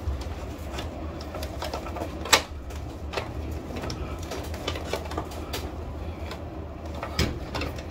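Scattered clicks and knocks of a roller blind headrail being handled and pushed up into its mounting brackets, over a steady low hum. The sharpest click comes a little over two seconds in.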